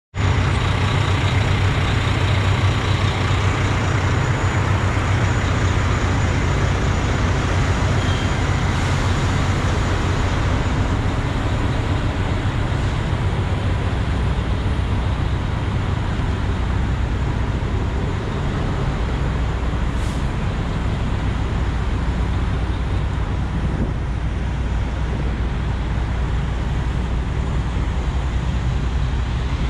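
Steady low drone of idling diesel engines among parked semi-trucks and trailers, with thin steady whines above it.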